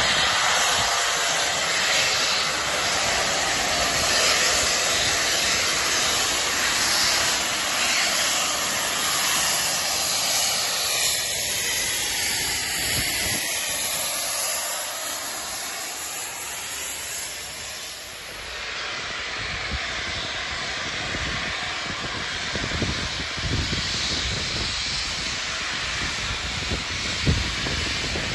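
LNER Peppercorn A1 three-cylinder Pacific steam locomotive 60163 Tornado passing through at speed with its train: a loud, continuous rushing of exhaust steam and wheels. A sweeping whoosh marks the moment it goes by, and the sound eases after about eighteen seconds as it draws away.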